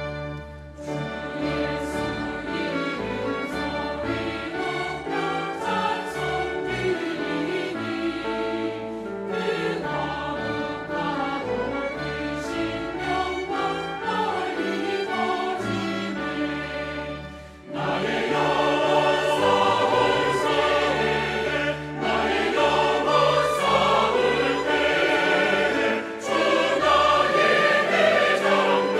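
Large mixed church choir singing a Korean hymn anthem, accompanied by a pipe organ holding sustained bass notes. After a brief dip about two-thirds of the way in, the choir comes back louder.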